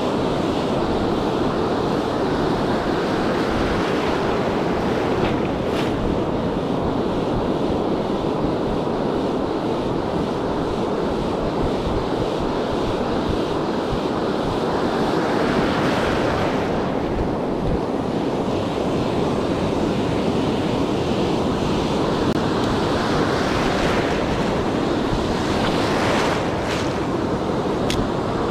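Ocean surf breaking and washing up the beach, with wind buffeting the microphone. A wave's wash comes up louder about halfway through and again near the end.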